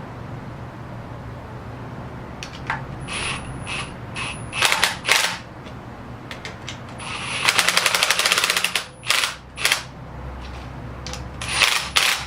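Cordless power tool, most likely an impact-type driver, run in short bursts while fastening bolts, with one longer burst of rapid hammering about seven and a half seconds in.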